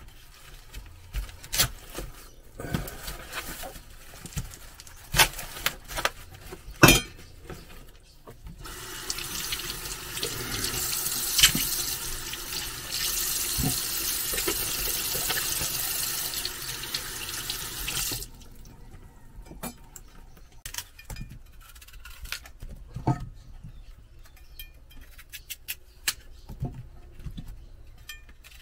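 Kitchen tap running into a stainless steel sink for about ten seconds in the middle while chunks of calabaza squash are rinsed under it. Before and after, sharp clicks and knocks of a knife cutting the squash, the loudest two knocks in the first quarter.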